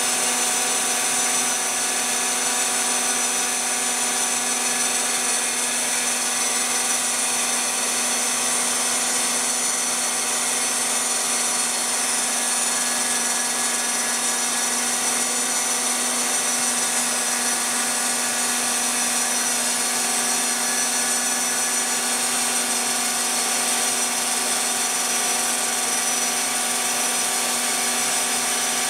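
Phlatprinter CNC machine's spindle running at steady speed while its end mill cuts a fibreglass sheet: a constant whine of several steady tones over a rough cutting noise.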